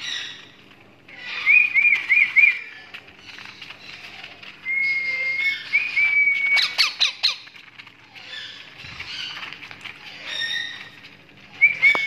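Creamino rose-ringed parakeet chicks calling in bursts: raspy squawks mixed with short, clear whistled notes, including a quick run of four chirps early on and a cluster of sharp clicks around the middle.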